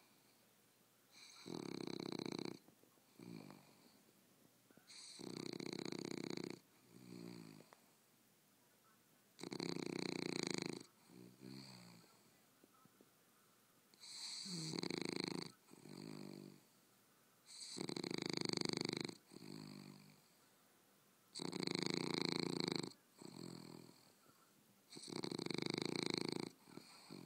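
An English bulldog snoring in its sleep: a loud, rasping snore about every four seconds, seven in all. Each is followed by a shorter, quieter fluttering breath.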